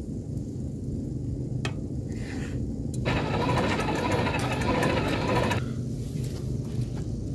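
Small blower fan on a charcoal grill running with a steady motor hum. For about two and a half seconds in the middle it gives a louder rushing noise as it blows the glowing coals and sends up sparks.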